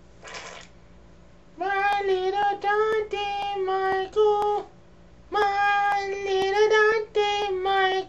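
A short breath-like hiss, then a high-pitched voice singing a little tune in two phrases of short, steady notes.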